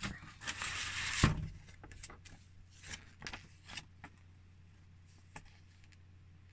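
Plastic miniature-figure sprue handled and turned in the fingers: a rustle with a sharp click about a second in, then scattered light clicks that die away.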